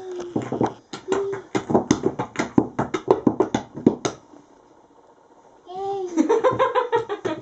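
Small wooden toy blocks clacking against each other and on the floor as they are stacked and knocked over, a rapid string of knocks for about four seconds. After a brief lull the clacking resumes near the end with a person's voice sounding over it.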